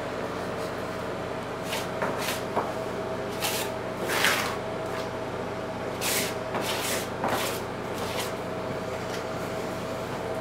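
Short scraping, rustling strokes, about seven of them with the loudest about four seconds in, as a hand presses and smooths fiberglass mesh tape into wet liquid waterproofing membrane in a corner. A steady hum runs underneath.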